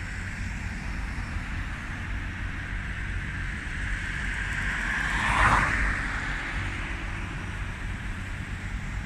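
Steady outdoor rumble and hiss, with a road vehicle passing close by: its whoosh swells to a peak about halfway through and fades away.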